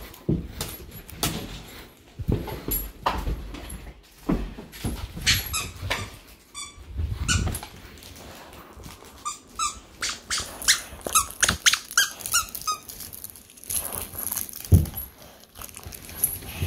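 A duck-shaped squeaky dog toy squeaks again and again as a pitbull-mix dog chews it, in quick runs of short, high squeaks. Thumps from the dog pouncing and moving about fall in between.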